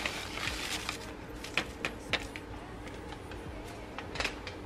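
Kitchen handling sounds: a few short, sharp clicks and knocks at irregular intervals over a faint steady hum.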